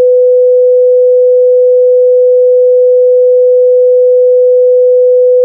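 Heart-monitor flatline: one continuous, steady electronic tone with no beeps, the sign of cardiac arrest with no heartbeat detected.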